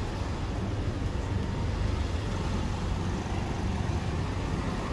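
Steady low rumble of city street traffic, with cars running and passing.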